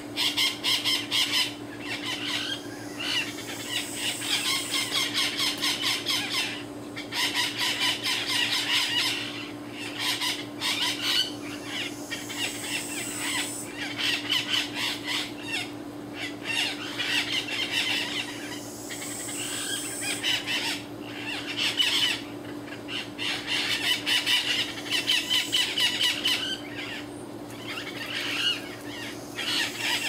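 Abaco parrots, the Bahamas race of the Cuban amazon, calling with rapid, repeated shrill squawks and squeals. The calls come in clusters of several seconds with brief lulls between.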